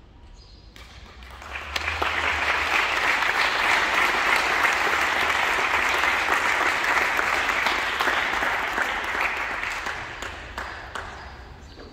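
Audience applauding, swelling quickly about a second and a half in, holding steady, then dying away near the end.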